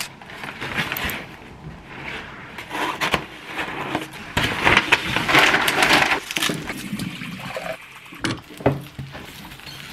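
Brown kraft paper crinkling and rustling as a bouquet of flowers is unwrapped, with many sharp crackles, loudest a little past the middle. Near the end, tap water runs into a glass vase.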